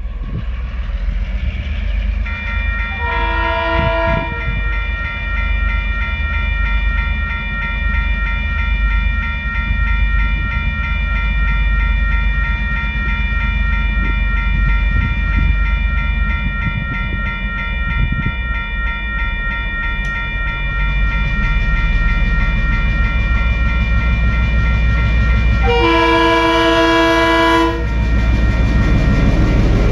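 Level-crossing warning bells start ringing about two seconds in and keep up a steady pulsing ring over the low rumble of approaching diesel locomotives. The lead TasRail DQ-class locomotive sounds its horn briefly about three seconds in, and again for about two seconds near the end as it reaches the crossing.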